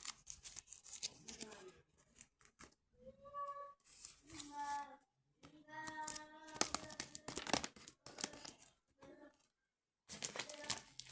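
Irregular crackling and rustling, with three short pitched tones, the first gliding, between about three and seven seconds in.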